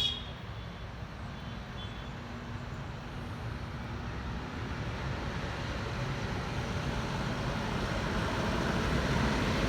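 Tractor engine running with a low rumble that grows gradually louder as it approaches.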